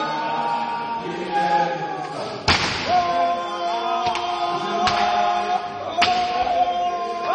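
A group of men chanting a Zulu song together, with heavy foot stomps from dancers. The loudest stomp comes about two and a half seconds in, and two sharper ones follow later.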